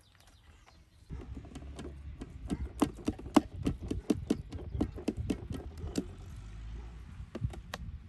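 Mashed potato and chopped greens being worked by hand in an enamel bowl: a quick run of sharp knocks and low thuds, several a second, starting about a second in and thinning out near the end.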